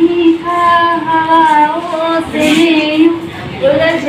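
A young woman singing solo into a microphone, in long held notes with a short breathing gap about two seconds in.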